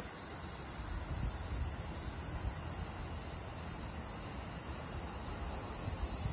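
Cicadas singing in a continuous chorus, a steady high-pitched drone that does not break, with low wind rumble on the microphone underneath.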